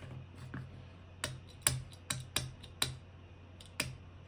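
Several sharp, irregular clicks and taps, about six, from small hand tools (a utility knife and a pin) being handled against a cardboard tube on a wooden tabletop.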